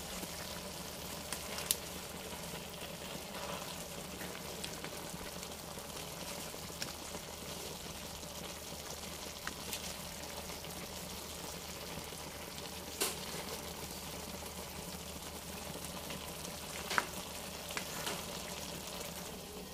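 Food frying in a pan on the stove, a steady sizzle, with a few sharp clicks.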